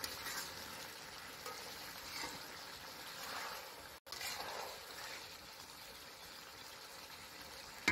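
Chicken and potato curry sizzling in a metal karai (wok) as it is fried down, with a few soft scrapes and stirs of a metal spatula through the pieces.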